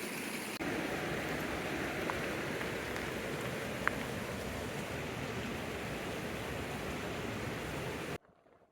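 A stream running steadily, an even wash of water noise that cuts off suddenly near the end.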